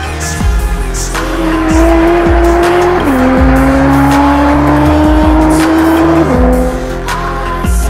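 Porsche 991.2 Carrera's twin-turbo flat-six, through an Inconel valved race exhaust, accelerating hard, its pitch climbing steadily. It shifts up about three seconds in and again about six seconds in. Background music with a steady beat plays throughout.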